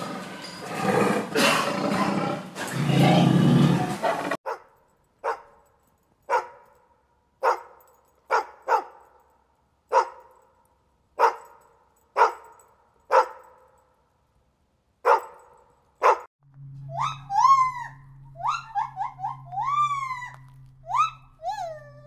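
A tiger growls for about the first four seconds. Then a husky-type dog barks about eleven times, roughly once a second with a short gap near the middle. Near the end come a monkey's high, rapid calls, each rising and falling in pitch, over a steady low hum.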